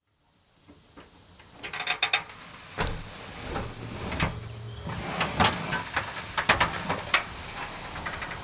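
A casket being slid out along the deck of a hearse by hand: a series of sharp clicks, knocks and rattles in clusters as it is pulled.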